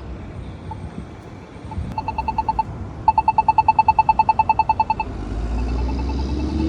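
Polara iNS accessible crosswalk button giving its rapid ticking walk tone, about ten ticks a second: a short burst about two seconds in, then a louder two-second run, then fainter ticks. A passing vehicle rumbles in under it near the end.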